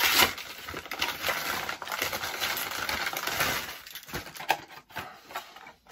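Paper mailer envelope crinkling and rustling as it is handled open and the string packets are pulled out, with sharp clicks and taps of the packets throughout. The rustling dies down to a few clicks about four seconds in.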